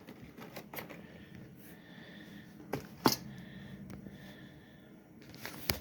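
Small parts and packaging from an ATV wiring-harness kit being handled: a few sharp clicks and taps, the loudest about three seconds in, another near the end, over a faint background.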